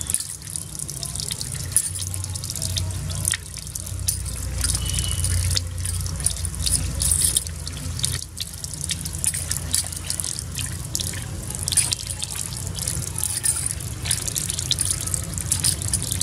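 Small fish being rubbed and scrubbed by hand against a wet concrete floor to scrape off their scales: a dense, irregular run of short wet clicks and splashes.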